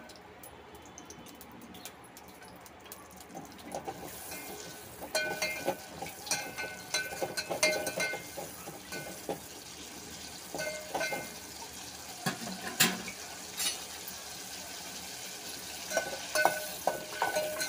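Cashews frying lightly in butter and oil in a metal pot: a soft sizzle that builds after the first few seconds, with a slotted metal spoon scraping and clinking against the ringing pot in several spells of stirring.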